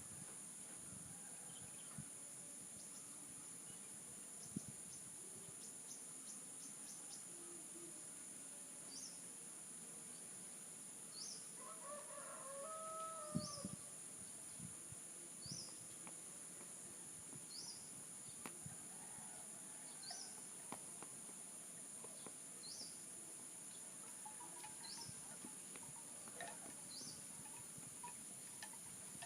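A rooster crows once, faint and distant, about twelve seconds in, over a steady high insect drone. A short rising chirp repeats about every two seconds throughout.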